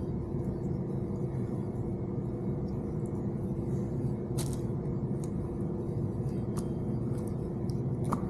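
Steady low background hum, with a few light clicks and taps of plastic wiring-harness connectors being handled.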